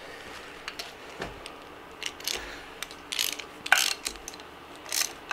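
A 9/16 ratchet clicking in several short runs as the timing cover bolts on a Pontiac 350 V8 are snugged up against the new gasket.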